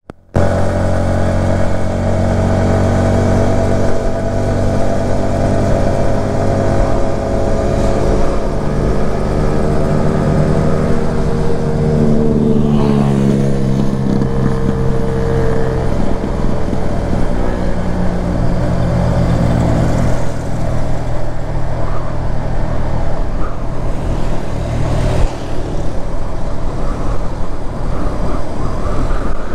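Yamaha MT-15's 155 cc single-cylinder engine running at road speed, its pitch sliding down and climbing again a few times with throttle and gear changes, over a steady rush of wind and road noise.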